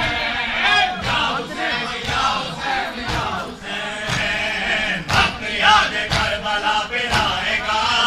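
Group of men chanting a Shia mourning lament (noha) together, with sharp slaps now and then.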